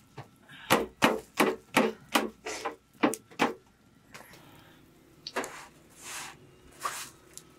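A quick run of about eight sharp knocks in three seconds, then three softer, longer rustling knocks near the end.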